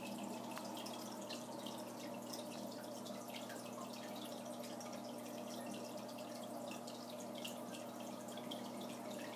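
Aquarium filter running: water trickling and dripping into the tank as a steady patter of small splashes, over a low steady hum.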